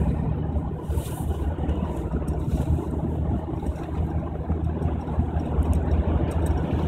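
1998 Suzuki Jimny's 1.3-litre four-cylinder petrol engine running with a steady low hum that wavers slightly in level. The owner is chasing a rough idle and stalling.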